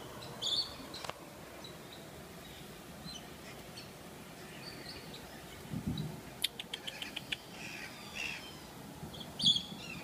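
White-throated magpie-jays calling, with short scattered calls, a quick run of about eight sharp clicks a little past halfway, and a loud call near the end. A dull low thump comes just before the clicks.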